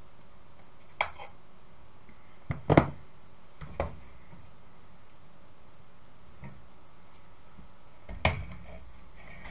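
Scattered clicks and knocks of hands handling the metal frame of an old CCTV camera unit during dismantling: about six in all, the loudest a pair about two and a half to three seconds in, another near the end.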